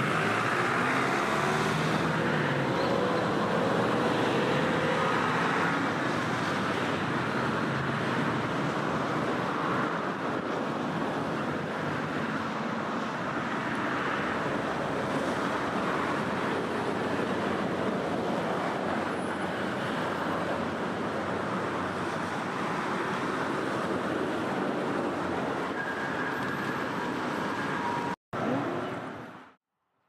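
Shallow river water running over stones, a steady rushing. It cuts out briefly near the end, then fades away.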